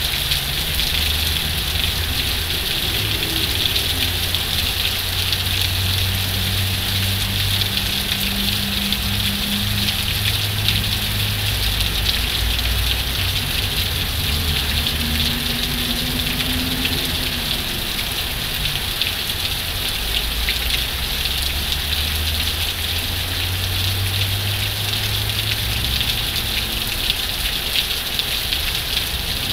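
Heavy rain falling steadily, a continuous hiss of drops, with a low rumble beneath it.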